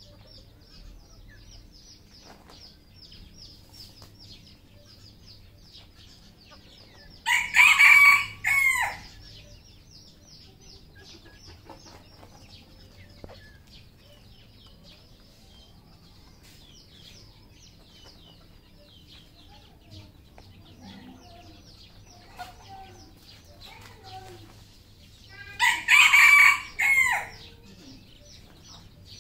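Red junglefowl rooster crowing twice, about eighteen seconds apart, each crow a short run of loud syllables.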